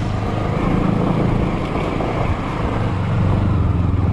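Motorcycle engine running steadily as the bike rides a rough dirt track, a constant low drone under a wash of wind and road noise.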